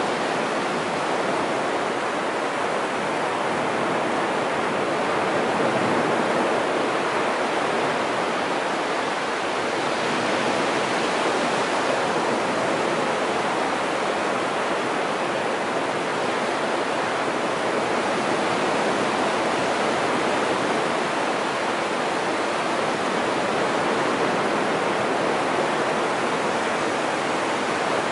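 Waves breaking on a sandy beach: a steady wash of surf that swells slightly in loudness now and then.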